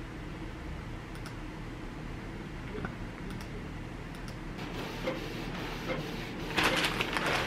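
Plastic mailer bags rustling and a few light clicks as orders are packed, over a low steady hum; the rustling starts about halfway through and is loudest near the end.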